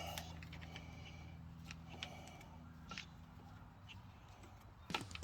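Faint scattered clicks and light taps of a hand tool working small fasteners on a motorcycle's front end, the sharpest tap near the end, over a low steady hum that weakens about halfway.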